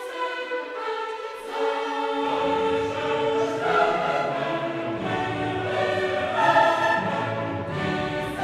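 Background music: a choir singing over an orchestra, with deeper parts coming in about two seconds in.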